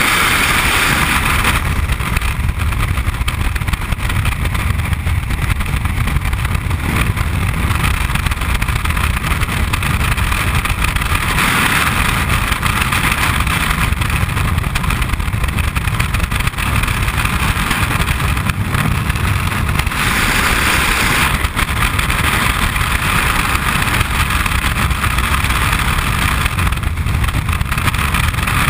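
Freefall wind rushing over a body-worn camera's microphone: a loud, steady rush with a deep rumble underneath, growing brighter for a second or two a few times as the airflow shifts.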